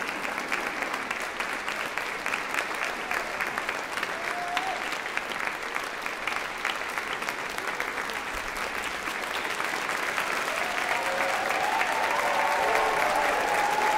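Audience applauding steadily, a dense patter of many hands clapping, with cheering voices joining in and the clapping growing a little louder over the last few seconds.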